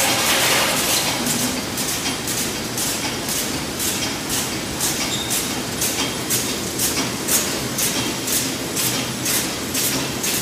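Automatic feeding conveyor and flow-wrapping packing line running: a steady mechanical hum with a regular clack about twice a second.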